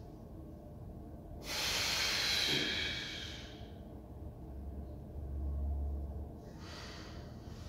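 A man breathing hard while holding bodybuilding poses: a long, forceful exhale about a second and a half in, then lighter breaths near the end. A low rumble rises and falls around five seconds in.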